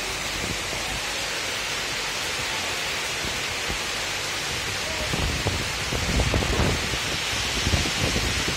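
Heavy rain pouring down in a steady hiss. From about halfway through, gusts of strong wind add a low, uneven rumble.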